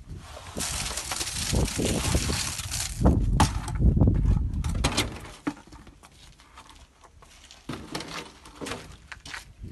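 Coarse, gravelly concrete mix being tipped and worked: a gritty hissing pour for a couple of seconds, then a run of knocks and scrapes, going quieter past the middle and picking up again near the end.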